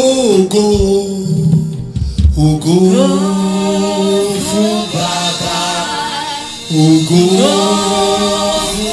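Gospel praise singing: a lead singer and backing singers holding long notes in sustained phrases.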